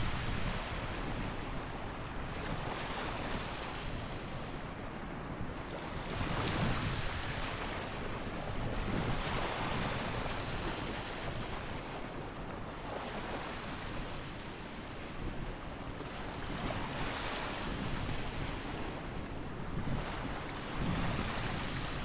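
Small ocean waves breaking and washing up a sandy beach: a steady hiss of surf that swells every three to four seconds as each wave runs in.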